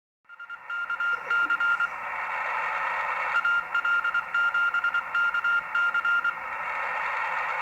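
Morse code (CW) signal received on a Drake TR-4C SSB transceiver on the 40-metre band: a single beeping tone keyed in dots and dashes over steady band hiss from the speaker. The hiss comes up just after the start, and the code runs briefly about a second in, then again from about three to six seconds in.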